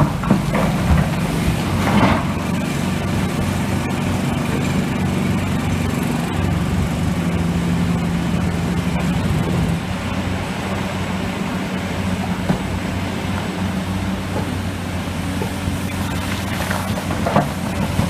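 Hitachi EX-1200 excavator's diesel engine running steadily under load, its note easing a little about halfway through. Limestone rocks crash into a steel dump-truck bed as the bucket empties, twice near the start and again near the end.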